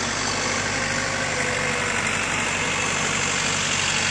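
John Deere compact tractor's engine running steadily at idle, an even, unchanging drone.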